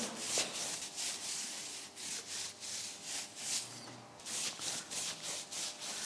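Hand brush scraping in short, scratchy strokes, a few a second, over freshly laid bricks and mortar: the wet joints are being brushed off after bricklaying.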